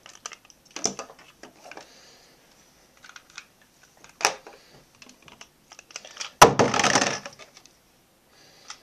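Plastic Beyblade launcher and spinning tops being handled and set up: scattered light clicks and rattles. About six and a half seconds in there is one louder rasping burst lasting under a second.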